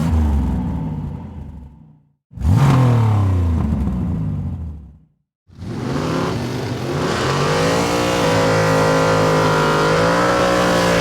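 Supercharged Hellcat V8 in a Plymouth Road Runner revving, in three separate stretches that cut off sharply: first a rev dying away, then a rev that climbs and falls back, then from about halfway a longer run where the pitch climbs and holds steady.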